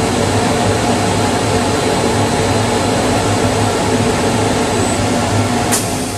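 Fume exhaust blower of an automated welding station running steadily with a low hum. There is one sharp click near the end.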